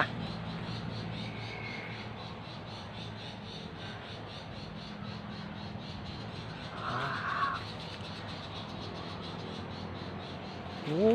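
Outdoor garden ambience: a steady high-pitched pulsing at about five beats a second over a low hum, with one short harsh bird call about seven seconds in.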